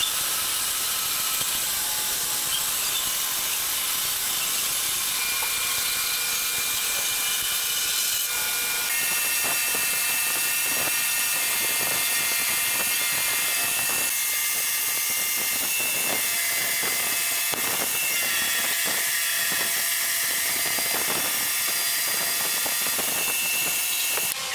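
A bandsaw running and cutting a curve through a wooden board. About eight seconds in it gives way to a motor-driven sanding drum spinning, with a curved wooden strip pressed against it again and again.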